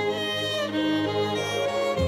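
Instrumental background music: a slow melody of held notes over a sustained bass note.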